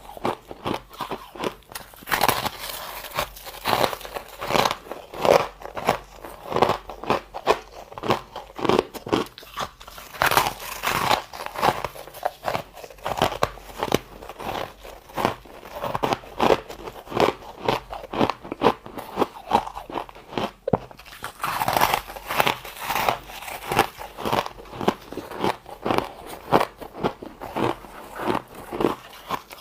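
Close-up crunching of soft, powdery freezer-frost ice being bitten and chewed, in quick repeated crisp crunches.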